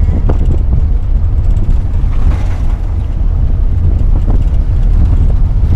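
Cab-interior sound of a 1984 Daihatsu Hijet 1000 driving: its three-cylinder engine running under a deep, steady road rumble with wind noise, and a couple of brief knocks.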